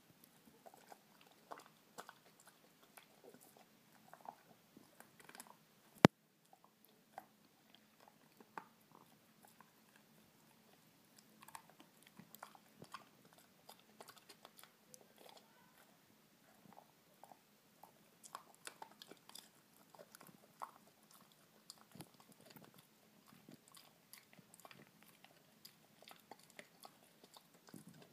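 Dachshund gnawing and crunching on a hard chew treat held between its paws, with scattered small, irregular crunches and clicks of teeth on the chew. One much louder sharp click comes about six seconds in.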